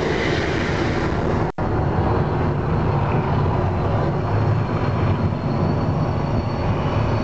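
The Mirage volcano attraction erupting: a loud, steady rumble of its gas fire jets and amplified show soundtrack. The sound cuts out for an instant about a second and a half in.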